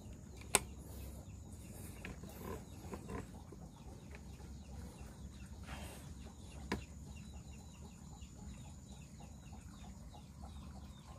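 Quiet outdoor background with faint bird calls. A single sharp click about half a second in is the loudest sound, and a weaker click comes near the middle.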